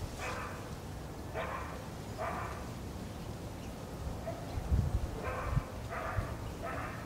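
A dog barking in the distance: three short barks, a pause of about three seconds, then three more. Low rumbles come in about halfway through.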